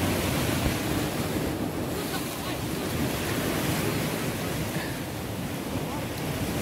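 Sea surf washing and breaking against a rocky shore, a steady rushing noise, with wind buffeting the microphone.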